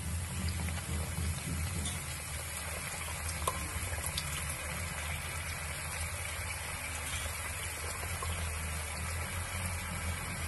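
Washed fenugreek leaves and potato pieces frying in hot mustard oil in a kadhai: a steady sizzle, the wet leaves spitting in the oil, over a steady low hum.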